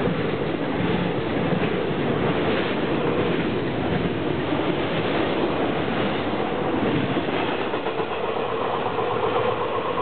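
Double-stack intermodal freight cars rolling past at speed close by: a steady, loud rumble and rattle of steel wheels on the rails.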